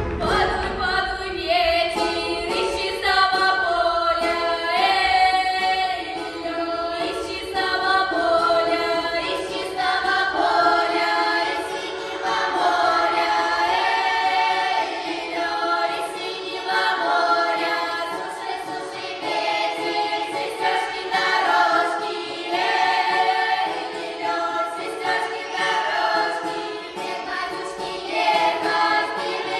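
Several voices singing a Russian folk song of the Tula region together, unaccompanied, in harmony.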